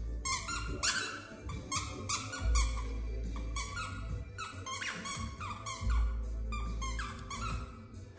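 A squeaky dog toy squeaked over and over as a whippet chews on it: short squeaks at about three a second, uneven in pitch and spacing, stopping shortly before the end.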